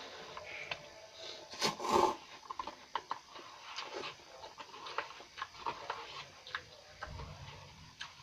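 Close-up eating sounds of instant cup noodles: wet slurping and chewing with many small clicks. The loudest slurp comes about two seconds in.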